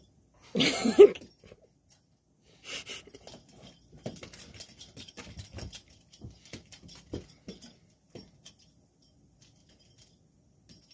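A kitten chasing and pouncing on a feather wand toy on carpet: scattered light clicks and patter from its paws and the toy. About a second in there is a short, louder pitched sound, and a brief noisy burst follows near three seconds.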